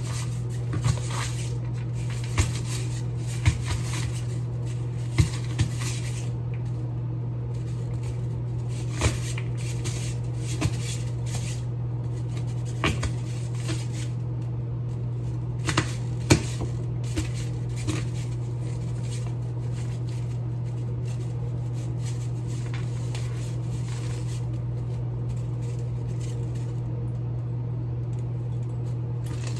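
Kitchen handling sounds: scattered knocks and clinks of dishes and utensils over a steady low hum, the knocks thinning out after about eighteen seconds.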